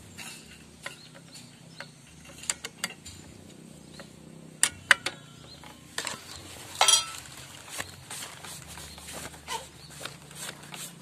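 Scattered light metal clicks and clinks from a T-handle socket wrench working the clutch pressure-plate bolts of a motorcycle engine, with a few sharper metallic taps about five and seven seconds in as the tool comes off.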